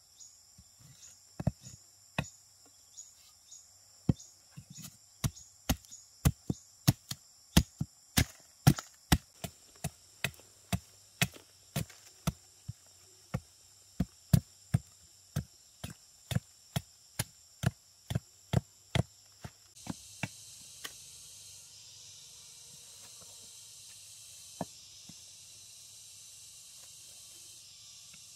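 Repeated sharp chopping strikes, about two a second, stopping about twenty seconds in. Insects buzz steadily throughout, swelling into a louder high chorus once the chopping stops.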